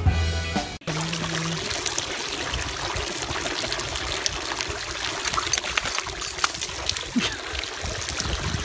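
Water trickling and splashing steadily from the tiers of a garden fountain into its basin. It starts about a second in, after a brief snatch of music.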